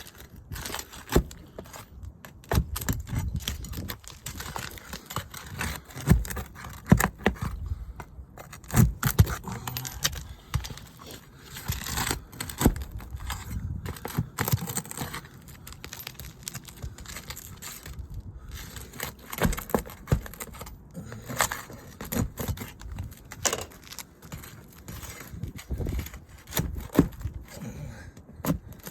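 Asphalt roofing shingles being lifted and scraped while roofing nails are pried out with a metal tool: irregular clicks, knocks, crackles and scrapes.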